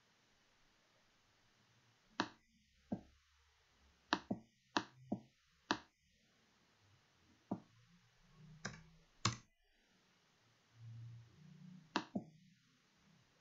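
Computer mouse and keyboard clicks: about a dozen sharp, separate clicks, some in quick pairs.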